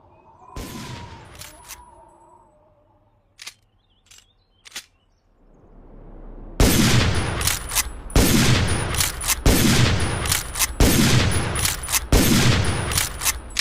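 Winchester Model 1895 lever-action rifle: a single shot with a long echoing tail, a few sharp metallic clicks of the lever being worked, then a rapid string of about five shots, roughly one every second and a half, with lever clicks between them.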